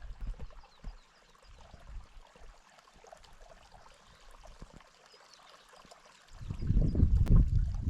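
Faint trickle of a small stream, then gusts of wind buffeting the microphone from about six seconds in.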